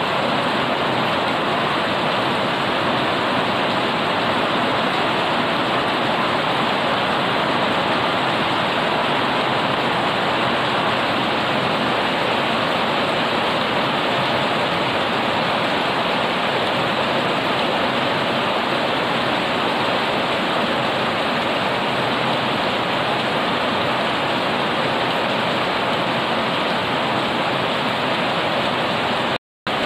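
Heavy rain pouring steadily onto garden foliage and a wet paved path, a dense even hiss. It cuts out for a split second near the end.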